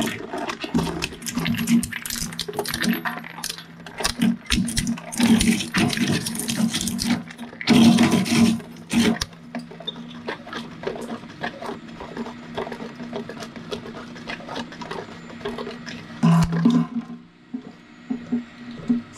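Twin-shaft shredder running with a steady hum, its cutter discs knocking and scraping against a pair of plastic-bodied binoculars that bounce on the blades with repeated clatter. Louder crunching bursts come about five to nine seconds in and again about sixteen seconds in.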